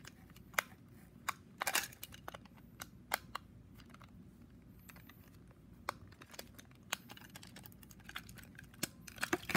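Light, irregular clicks and taps of a screwdriver and hard plastic parts being handled while the battery cover of a Trackmaster toy train is unscrewed.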